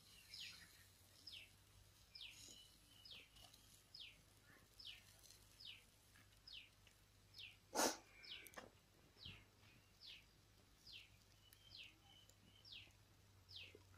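Faint bird call repeated about once a second, each a short note sweeping downward in pitch. A single sharp knock about halfway through.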